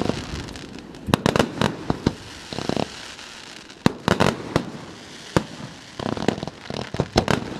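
Aerial fireworks bursting: a run of sharp bangs and reports at irregular intervals, coming thicker near the end.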